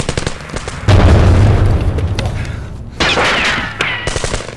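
Battlefield explosion sound effects: sharp cracks, then a loud blast about a second in whose low rumble dies away over about two seconds. A second burst about three seconds in carries high falling whistles.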